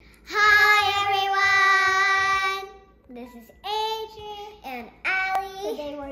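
A young girl singing a greeting: one long held note for about two seconds, then a few short sung phrases that glide up and down in pitch.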